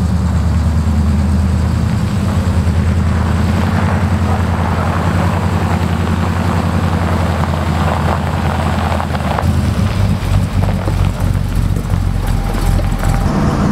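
1978 Chevy K30 pickup's engine running steadily as the truck drives off, loaded with a camper. Its tone changes about nine or ten seconds in.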